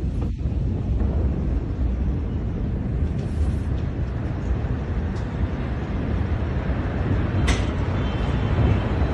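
Low, steady rumble in the moments after a massive explosion, picked up by a phone's microphone, with a short crackle about seven and a half seconds in.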